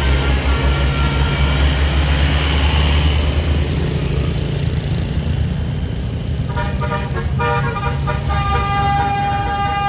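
A bus engine running loud and low, fading away over the first few seconds; then, about six and a half seconds in, a multi-note telolet horn starts playing a tune of stepped notes, holding one long note near the end.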